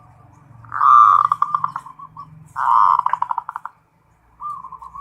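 Zebra dove (perkutut) cooing: two loud calls, each a held note that breaks into a quick run of short staccato notes, then a softer third call starting near the end.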